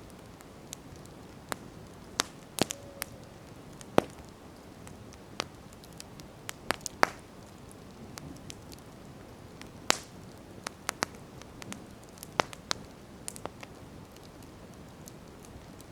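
Wood campfire crackling, with sharp irregular pops and snaps over the low steady hiss of the burning.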